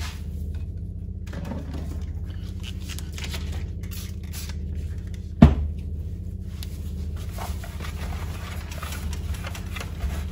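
Plastic front fairing of a Triumph Street Triple RS being handled on a workbench: faint rustling and light clicks, and one sharp knock about halfway through, over a steady low hum.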